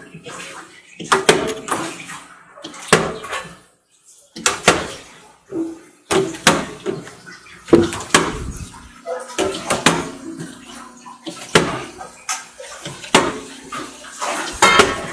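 Plastic puzzle cubes knocking and clacking as they are stacked on a tower and set down on a glass tabletop, in a run of sharp knocks about one or two a second.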